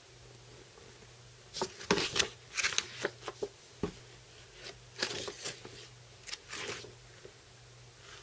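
Large, thick paper pages of a model-kit instruction manual being turned and handled: a run of short rustles and flaps starting about a second and a half in and ending about a second before the end.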